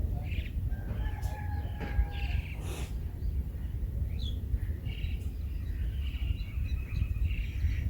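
Birds chirping and calling, with short whistled notes and chirps scattered throughout, over a steady low rumble.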